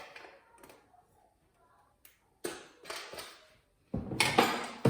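Handling noise from a TV being taken apart with a screwdriver: a tap at the start, a short rustling scrape about two and a half seconds in, and a louder clattering rustle in the last second.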